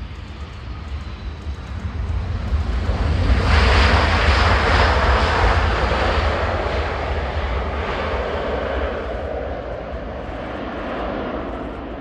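Airbus A320-214's CFM56 jet engines during the landing roll: the jet noise swells about three seconds in as the aircraft passes close, then slowly fades as it rolls away down the runway.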